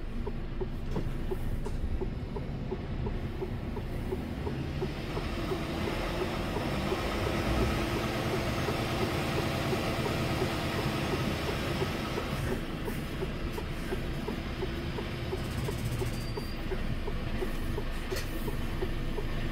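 Steady engine and road rumble heard inside a moving truck cab, with a faint regular ticking. The noise swells for several seconds in the middle.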